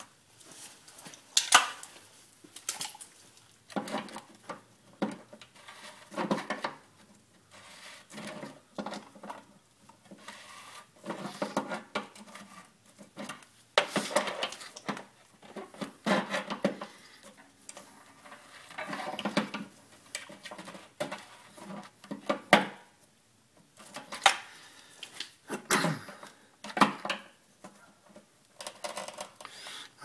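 Large metal pliers clinking, knocking and scraping against a new screw-in water heater heating element and the heater's metal access opening as the element is threaded in and tightened. The knocks come irregularly, a few every couple of seconds.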